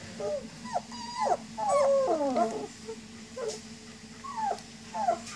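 Very young German Shepherd puppies whining and whimpering for their mother: a string of short, high, falling cries, with several pups crying over one another about two seconds in.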